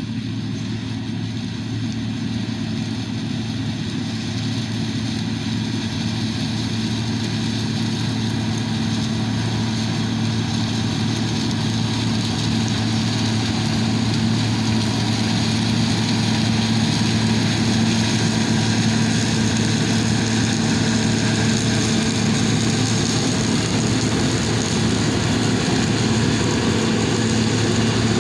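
John Deere HillMaster combine running steadily under harvest load, its engine and threshing machinery making a constant drone that grows gradually louder.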